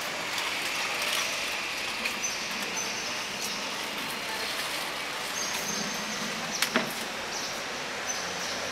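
Steady background noise of a large sports hall, with two sharp knocks in quick succession about six and a half seconds in.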